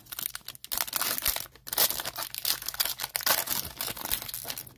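Foil wrapper of a 2020-21 Panini NBA Hoops card pack being torn open and crinkled by hand: an irregular run of crackling rustles.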